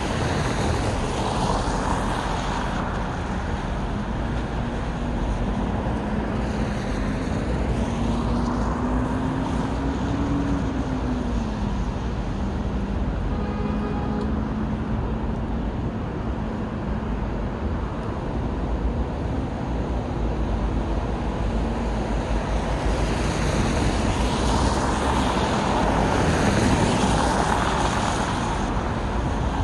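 Steady city road traffic, with vehicles passing one after another. A low engine hum rises and falls in pitch in the first half, and the traffic is loudest in a pass near the end.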